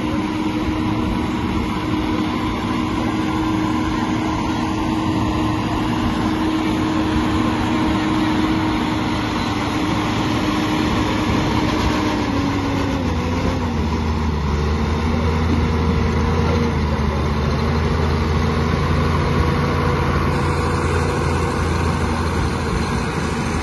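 Fiatagri 180-90 tractor's diesel engine running hard under load as it drags a tractor-pulling sled. About halfway through its pitch sags a little and a deeper drone builds from then on.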